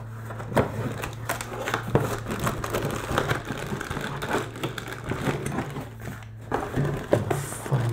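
Plastic packaging rustling and crinkling as hands rummage in a cardboard box and lift out bagged accessories, with irregular light knocks and clicks.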